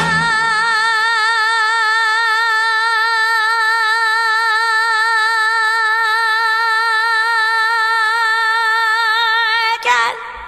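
A woman singing one long held note with even vibrato, unaccompanied. The note breaks off just before the end.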